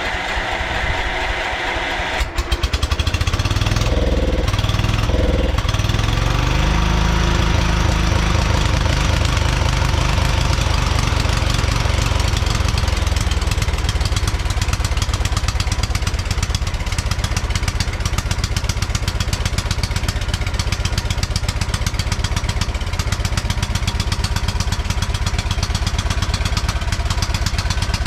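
Engine of a 1971 John Deere 140 H1 riding lawn mower running steadily. About two seconds in it gets abruptly louder and closer. Its pitch briefly rises and falls twice soon after.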